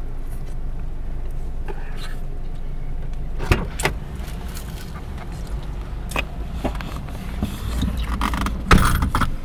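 Inside a car cabin: the steady low rumble of the car running, with a few light knocks and clicks from handling inside the car, and a louder burst of noise near the end.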